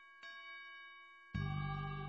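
Instrumental background music: a single ringing note sounds about a quarter second in and fades, then a loud, full sustained chord comes in about two-thirds of the way through.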